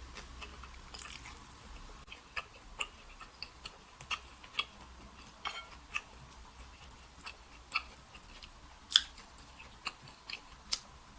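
Close-miked mouth chewing a steamed dumpling: irregular soft wet clicks and smacks, with one louder smack about nine seconds in.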